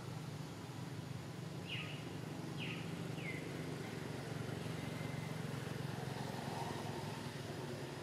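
Steady low outdoor hum, with three short falling bird chirps about two to three seconds in.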